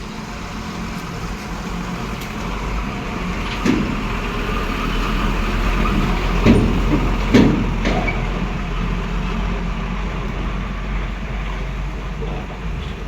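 Road traffic with heavy vehicles passing: a steady low engine rumble that builds and eases, with a few short sharp sounds along the way.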